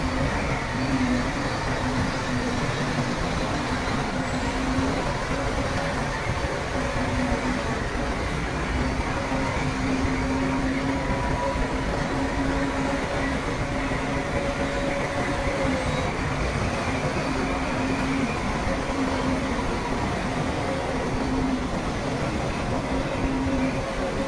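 Diesel engine of heavy earthmoving machinery running steadily, a continuous drone with a hum that wavers slightly in pitch.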